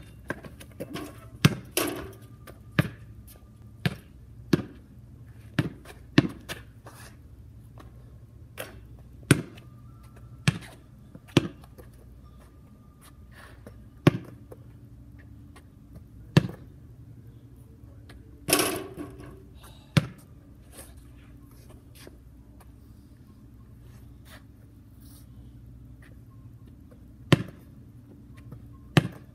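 Basketball bouncing on a concrete driveway and striking the backboard and rim: single sharp bangs, often about a second apart in short runs, with gaps between. One louder impact, about two-thirds of the way through, rings on longer.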